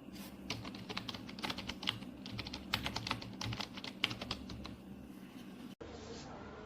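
Typing on a wireless keyboard with round typewriter-style keycaps: a quick, irregular run of key clicks that starts about half a second in and stops near five seconds in.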